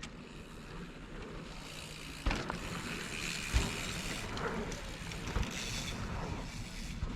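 Mountain bike rolling over a dirt trail, with tyre noise and wind on the microphone building up, and a few sharp knocks from the bike hitting bumps.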